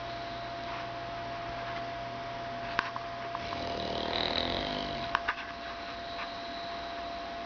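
English bulldog snoring in its sleep, with one longer snore in the middle. A few sharp clicks fall around it.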